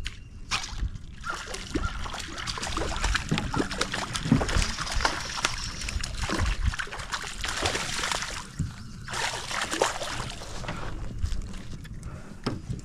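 Hooked black crappie splashing and thrashing at the water's surface as it is reeled to the boat, in a long spell of splashing and then a shorter one.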